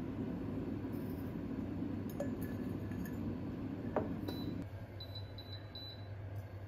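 Metal teaspoon scooping loose tea leaves and clinking against a glass teapot, with one sharp clink about four seconds in and a few light ticks before it, over a steady low hum.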